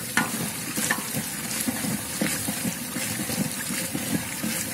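Liquid sloshing and gurgling in a large aluminium cooking pot as a long metal ladle stirs it, with a couple of sharp knocks of the ladle against the pot in the first second.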